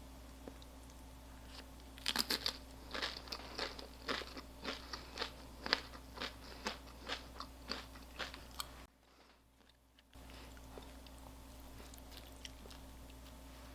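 Someone biting and chewing a crisp, crunchy food: an irregular run of sharp crunches, two or three a second, for about six seconds, then they stop.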